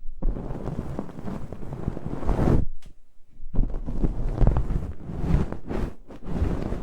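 Fluffy ear stick brushing and rubbing over the ear of a binaural microphone, giving close, scratchy rustling in uneven strokes with short breaks.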